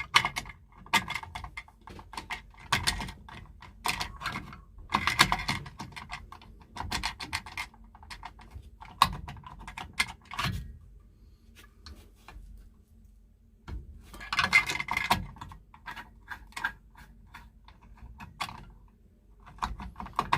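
Irregular clicks, clinks and rattles of small metal parts and hand tools being handled, in clusters with a short lull about two-thirds through, as the cover goes back on a well pump pressure switch.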